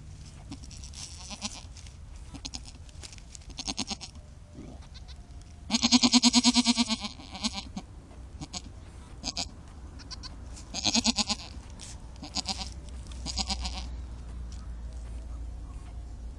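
Goats bleating: several short, wavering bleats and one loud, longer bleat about six seconds in, from a nanny goat and her just-born kid.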